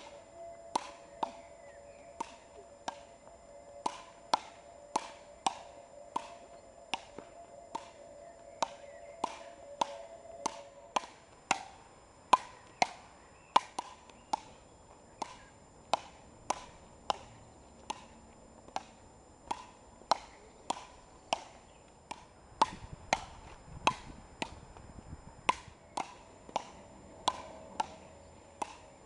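Frescobol rally: wooden paddles hitting a small rubber ball back and forth in a steady rally, a sharp knock a little under twice a second, some hits louder than others.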